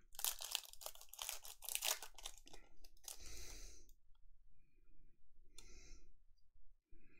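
A trading-card pack's wrapper being torn open, crackling and crinkling densely for about three seconds, then fainter, scattered rustling as the pack and cards are handled.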